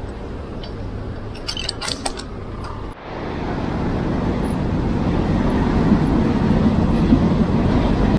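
A few light metallic clinks over a low hum, then after a sudden break a rush of wind and road noise from riding an electric scooter, growing steadily louder over the last five seconds.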